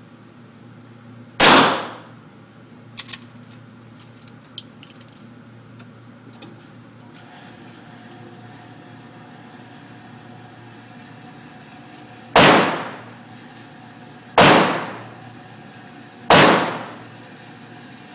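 Four rifle shots from a Henry rifle, each a sharp crack with a short fading tail. One comes about a second and a half in, and three more come about two seconds apart near the end. A few faint clicks fall between the first and second shots.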